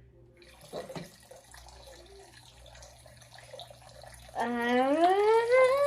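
Water from a small decorative waterfall trickling and splashing. Near the end a person's voice joins in with a long, drawn-out sound that rises in pitch and then holds, louder than the water.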